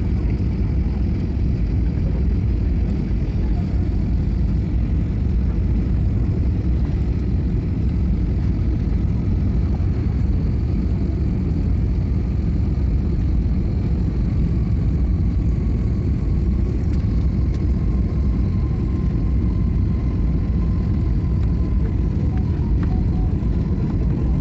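Steady cabin noise of a jet airliner on its descent to land, a deep even rumble of engines and rushing air heard from inside the cabin; a faint high steady tone comes in about halfway.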